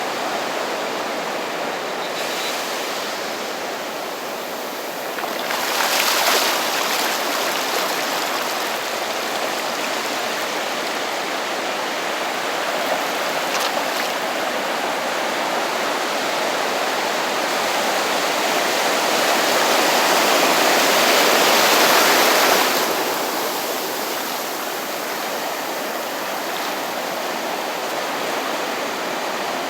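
Ocean waves breaking and washing up the beach in a steady rush, swelling once briefly about six seconds in and again in a longer build later on that drops off sharply.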